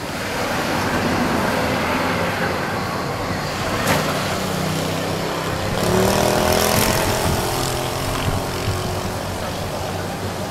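A motor vehicle engine running close by, the noise swelling and easing, with pitch changes about six seconds in and a single sharp click near four seconds.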